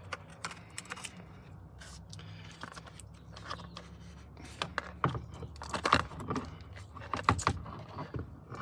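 Irregular light clicks and rattles of wiring connectors and plastic and metal steering-column parts being handled, coming thicker about five seconds in.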